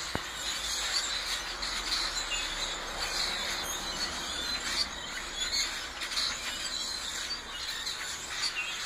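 A flock of birds in trees chirping and calling all at once, many short calls overlapping into a continuous chatter.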